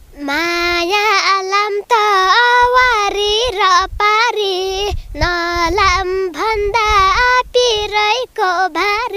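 A young girl singing a Nepali folk song solo, without accompaniment. Her voice is high, with pitch that bends and wavers in ornamented turns, and the phrases are broken by short pauses for breath.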